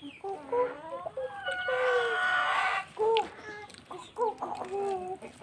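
Chickens clucking close by in short, repeated calls, with one longer, louder call about a second and a half in.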